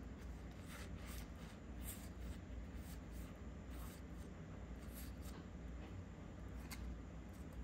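Soft rubbing and light flicks of Lorcana trading cards being slid one at a time from the front to the back of a hand-held stack, faint and irregular, over a low steady hum.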